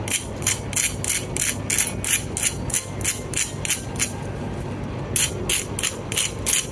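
Crust of crisp-fried potato and onion tikkis being scratched over and over to show how crunchy they are: a dry, crackly rasp about four times a second, which stops for about a second shortly after the fourth second and then starts again.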